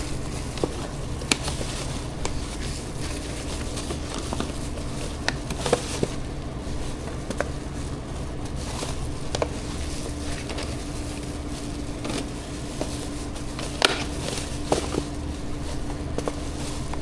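Takeaway food containers being handled and packed, making scattered light clicks and knocks over a steady low hum.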